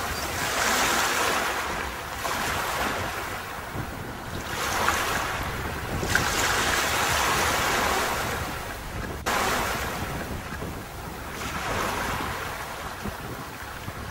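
Sea surf breaking on a beach: a hissing wash of waves that swells and ebbs every two to three seconds, with a sudden break about nine seconds in.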